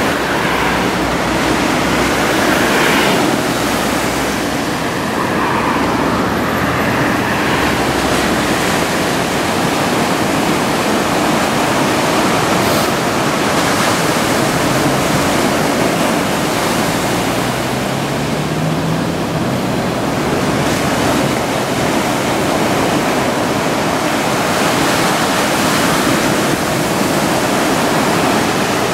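Heavy typhoon surf breaking and washing in a loud, steady roar, with road traffic mixed in and a vehicle's rising hum passing about two-thirds of the way through.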